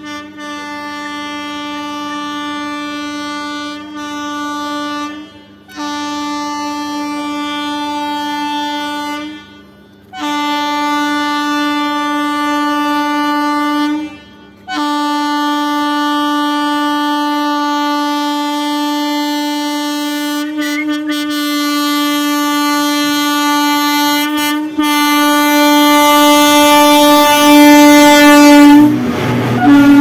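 Indian Railways electric locomotive's air horn sounding in long, steady blasts with short breaks, about five in all, growing louder as the express approaches. Near the end the locomotive passes close by with a loud rush of air and a rumble of wheels under the horn.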